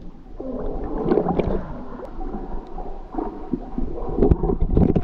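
Water sloshing and splashing around an action camera held at the water surface as a swimmer moves through a cave pool; irregular, with the loudest splashes near the end.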